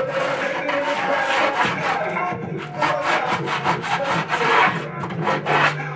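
Quick, scratchy strokes of writing on poster board, over music with singing in the background.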